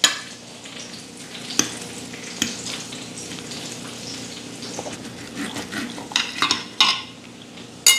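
Knife and fork clicking and scraping on a plate as a beef steak is cut and eaten, over a steady hiss; the clicks come singly, then in a quick cluster about six seconds in.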